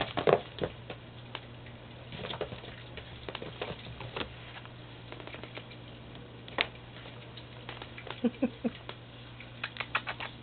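Siberian kittens playing on carpet: scattered light taps and scuffles of small paws and toys, with a quick cluster of taps near the end, over a steady low hum.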